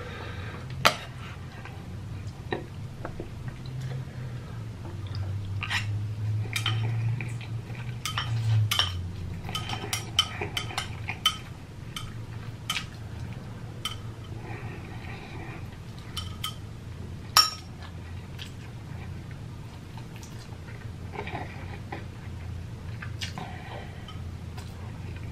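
Close-miked eating: chopsticks clicking against a bowl, with instant noodles being slurped and chewed in between. The sharpest click comes about two-thirds of the way through.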